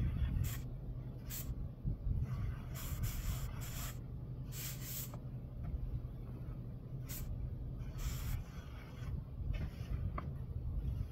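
Trowel scraping across acrylic stucco finish on a foam board: about eight short swishing strokes, some brief and some lasting about half a second, over a steady low rumble.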